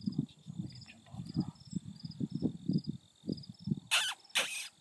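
A cricket chirping steadily, short high chirps about twice a second, over a low uneven rumble. About four seconds in come two brief, loud rushing noises.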